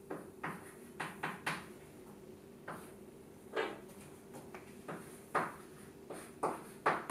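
Chalk writing on a blackboard: a string of short, irregular taps and scratches as symbols are written, a dozen or so strokes with uneven gaps between them.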